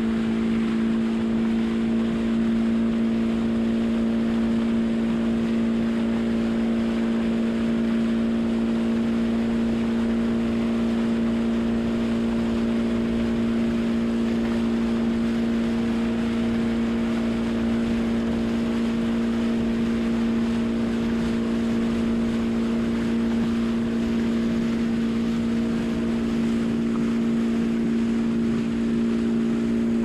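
Outboard motor of a small boat running at a constant speed, an even hum that never changes pitch, over a steady hiss of water and wind rushing past.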